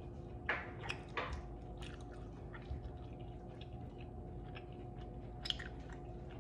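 Chewing and wet, sticky mouth and finger smacks as sauce-covered chicken wings are eaten and pulled off the bone by hand. There are a handful of short smacks, the loudest about half a second in and again after about five seconds, over a faint steady hum.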